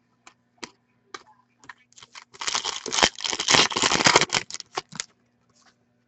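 Hockey trading cards being handled and flipped through: a few light clicks, then about three seconds of dense crinkly rustling and snapping.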